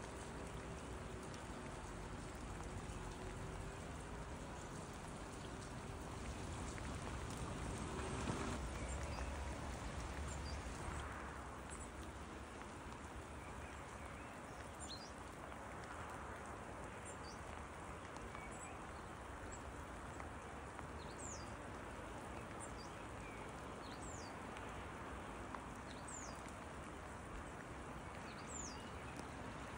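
Steady rain falling. From about halfway on, a bird gives short, high, falling chirps again and again over the rain, and a low rumble swells and fades about eight to eleven seconds in.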